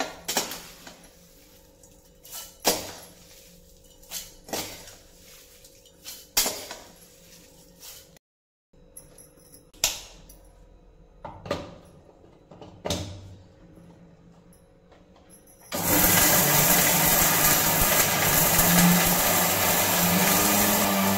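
Steel spoon clanking and scraping against a steel kadhai and mixer-grinder jar as roasted whole spices are tipped in: about a dozen sharp metallic knocks. About sixteen seconds in, an electric mixer grinder switches on and runs steadily, dry-grinding the roasted spices into masala powder.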